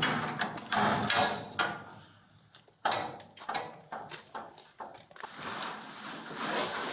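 Knocks and clicks of hard objects being handled, with a short lull about two seconds in, then a steady rushing noise from about five seconds in.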